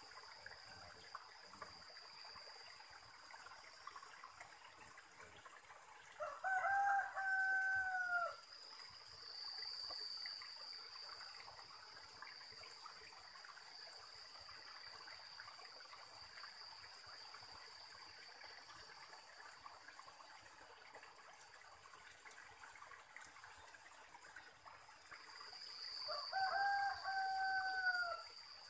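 A rooster crowing twice, about twenty seconds apart, each crow about two seconds long and falling in pitch at the end. A steady high-pitched insect drone runs underneath.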